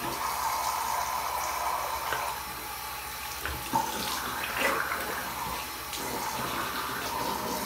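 Bathroom tap running steadily into a sink, with irregular splashing as water is brought up to rinse the face.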